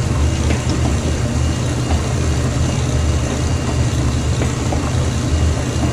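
A 1953 Hobart 20-quart stand mixer running steadily with a low hum, its dough hook kneading a large ball of pizza dough.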